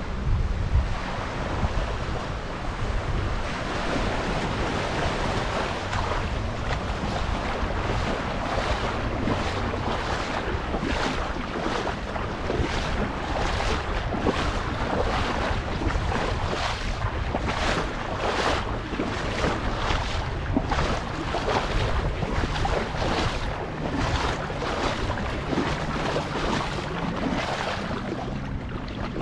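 Lake water sloshing and splashing around a person wading out through the shallows, with repeated short splashes from about eight seconds in. Wind rumbles on the microphone underneath.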